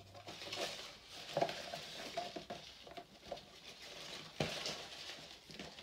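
Trading cards and their packaging being handled, a steady rustling with scattered light ticks and one sharper tap about four and a half seconds in.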